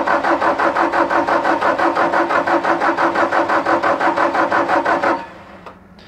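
Bobcat T770's Doosan D34 four-cylinder common-rail diesel cranking on the starter in steady, even pulses about five or six a second without firing, until the cranking stops about five seconds in. The engine will not start, which the mechanic puts down to low rail pressure, most likely from a leaking injector.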